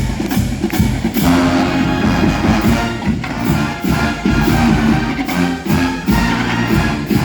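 College marching band playing: drums keep a steady beat while the brass section comes in about a second in with held chords.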